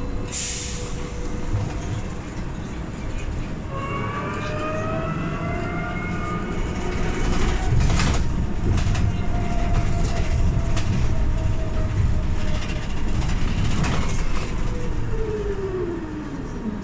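Irisbus Cristalis ETB 18 trolleybus's electric traction drive whining over low road rumble. The whine rises in pitch as the bus picks up speed about four seconds in, and falls as it slows near the end. There is a single knock about eight seconds in.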